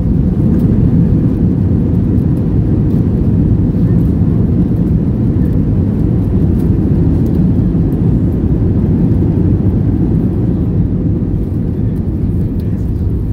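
Loud, steady low rumble inside an airliner's cabin during the landing rollout, spoilers raised: engine noise and the wheels running on the runway.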